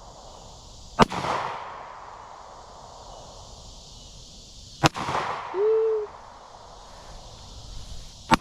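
Three pistol shots from a 9mm Taurus G2C, spaced about four seconds apart. Each is a sharp crack followed by a long fading echo.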